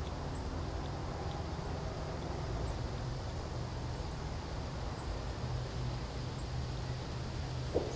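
Outdoor ambience: a steady low rumble with faint, brief high chirps scattered through it, and a single sharp click near the end.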